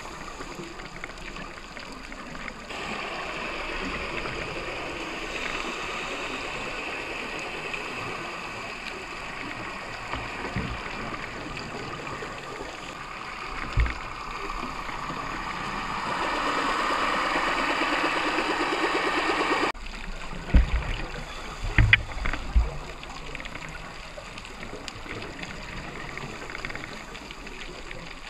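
Underwater sound during a scuba dive: a steady hiss and gurgle of regulator breathing and exhaled bubbles, growing louder and then stopping abruptly, followed by a few dull knocks.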